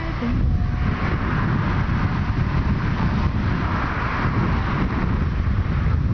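Rushing wind on a fur-windscreened camera microphone held out of a moving car window at about 60 km/h, with a steady low rumble of road and car noise. The long-hair fur and foil keep it to a dense, even rush with no whistling.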